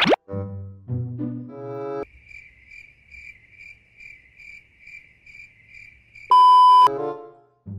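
Comic brass music breaks off into a cricket-chirping sound effect, a steady high chirp about two and a half times a second, the classic gag for an empty head. Near the end a loud single-tone beep cuts in, and the brass music comes back.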